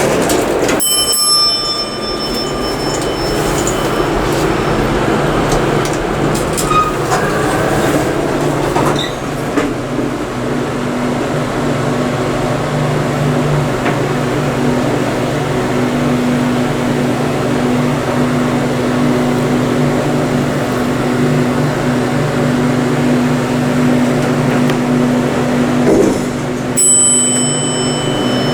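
Underground rail station noise: a steady low hum, with a brief high ringing chime about a second in and again near the end.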